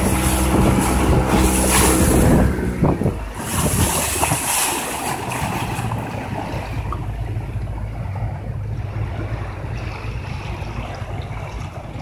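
Motorboat engine running with a steady drone that drops away about two and a half seconds in, leaving water splashing against the hull and wind buffeting the microphone as the boat slows.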